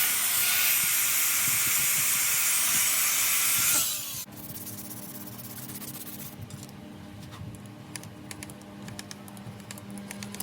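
Rebuilt 12 V 2.2 kW starter motor for a Yanmar 482/486 engine spinning free on test: a loud hissing whine that drops in pitch and cuts off about four seconds in. After it, faint scattered ticking over a low hum.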